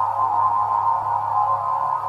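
Steady synthesized electronic drone centred near 1 kHz over a low hum, unbroken and without a beat.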